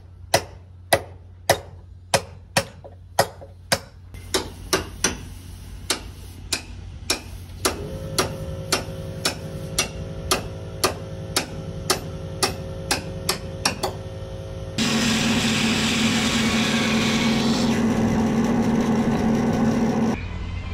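Run of hammer blows, roughly two a second, loudest in the first few seconds and then softer. About 15 seconds in, a power tool runs steadily for about five seconds, then stops.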